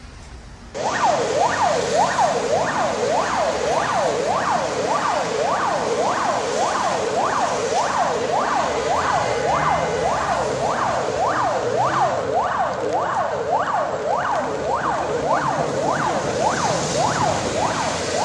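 Emergency-vehicle siren sounding a fast yelp: a quick falling sweep repeated about one and a half times a second, starting suddenly about a second in, over a steady hiss.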